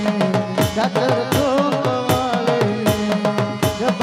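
A devotional song performed live: harmonium and a dholak hand drum accompany a singer, all through microphones and a loudspeaker. The drum keeps a steady rhythm under the sung melody.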